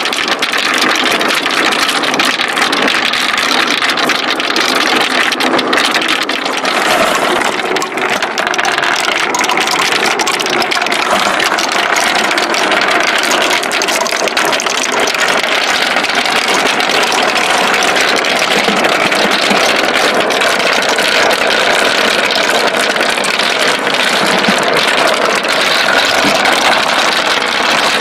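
Many marbles rolling and clattering down a wooden marble-run slope: a steady dense rattle of small clicks.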